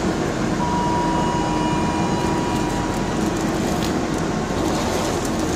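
SM42 diesel-electric shunting locomotive running as it pulls away along the station track: a steady low engine rumble, with a thin steady whine from about half a second in until about three seconds.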